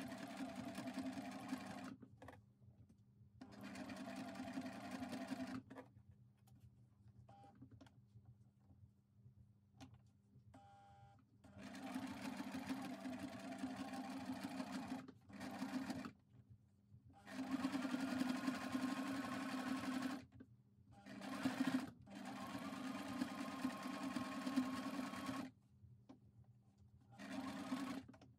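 Electric sewing machine stitching through layered felt in about eight short runs, each lasting from under a second to about four seconds, with quiet pauses between them.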